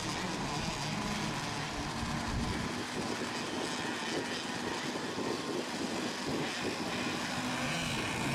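Engines of several radio-controlled racing boats running on the water before a race start, a steady buzz whose pitch wavers as the boats circle.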